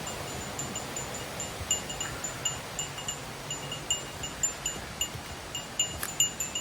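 A small metal bell jingling over and over, with quick, uneven strikes about three or four times a second, over a soft background rush.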